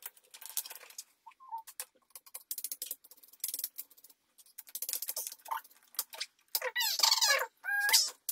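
Plastic modular circuit breakers clicking and knocking as they are handled and fitted onto a DIN rail. About seven seconds in comes the loudest part: a short run of high-pitched squealing and laughter.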